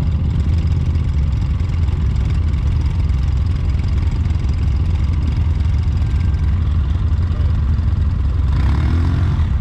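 Side-by-side UTV engine running steadily during off-road riding, a low, even drone. Near the end there is a short burst of higher, brighter sound.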